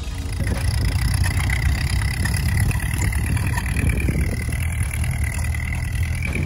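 Ford 8N tractor's four-cylinder flathead engine running steadily under way as the tractor drives across the field, with a thin steady high whine above the engine note.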